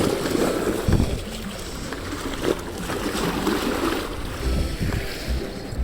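Wind buffeting the microphone over the wash of the sea, in uneven gusts.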